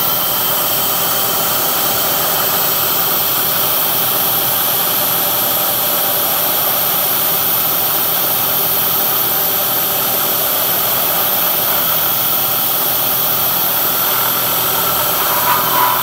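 CNC-converted Bridgeport milling machine running steadily, its spindle turning a half-inch three-flute carbide end mill at about 2,500 rpm in a hot-rolled steel plate: a constant whine and hiss with a few steady tones. There is a brief louder moment near the end.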